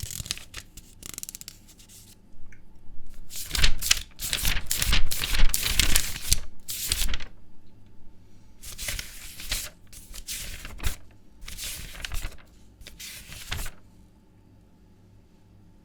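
Paper pages being turned: quick dry rustles and flicks of sheets, coming in several clusters of rapid page flips with short pauses between them.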